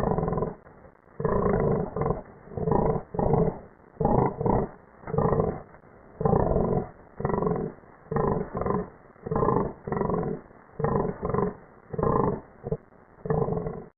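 Custom monster roar sound effect: a rapid string of short, deep roars and growls, about one and a half a second.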